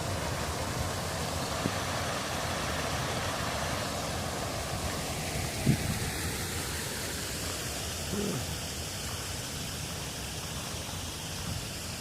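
Waterfall on a small river: a steady rushing of falling water that fades slightly toward the end.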